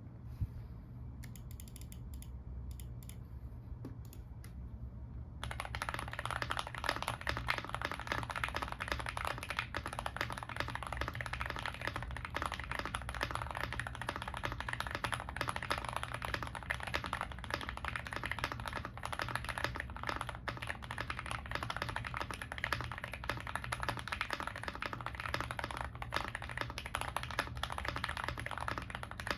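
Typing on a stock GMK81 mechanical keyboard with full foam, Gateron Yellow Pro 2.0 linear switches and Aifei double-shot ABS Cherry-profile keycaps. A few scattered keystrokes at first, then fast continuous typing from about five seconds in.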